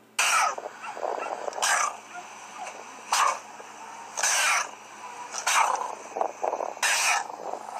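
Red fox caught in a wire live trap, giving short, harsh barks at intervals of about a second and a half, six in all.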